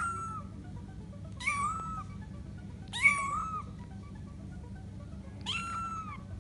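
A month-old grey munchkin kitten mewing four times, short high-pitched mews, the last after a longer pause.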